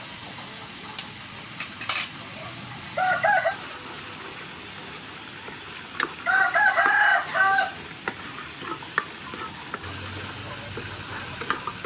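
A rooster crows twice, a short crow about three seconds in and a longer one from about six to nearly eight seconds, the loudest sounds here. Underneath, pork sizzles steadily as it fries in oil and sauce in a pan, with a spatula clicking and scraping against the pan now and then.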